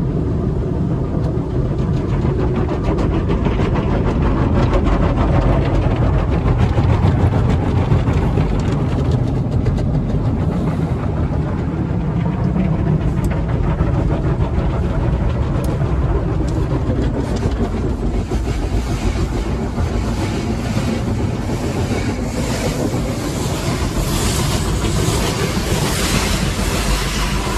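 Coleman Hanna tunnel car-wash equipment heard from inside the car: cloth wash brushes slapping and rubbing over the windshield and body while water streams onto the glass, a steady heavy rumble. In the last third the hiss of spray on the glass grows louder, with rapid slapping strokes.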